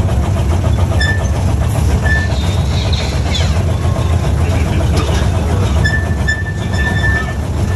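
Small amusement-park ride train running along its track: a steady low rumble from the carriages, with a few short high squeaks on top, about a second in, two seconds in, and again for about a second near the end.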